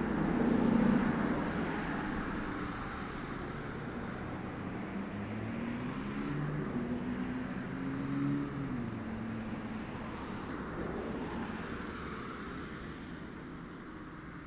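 Motor vehicle engine, a low hum over a steady rushing noise, rising and then falling in pitch partway through and slowly fading away.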